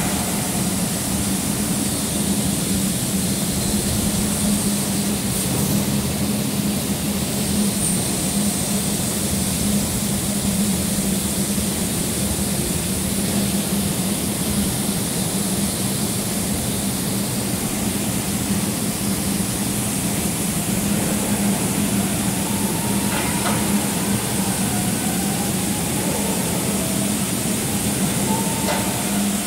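LVD Axel 3015S 4 kW laser cutter cutting 20 mm mild steel plate: the cutting jet gives a steady hiss over a steady machine hum, with faint wavering tones in the last several seconds.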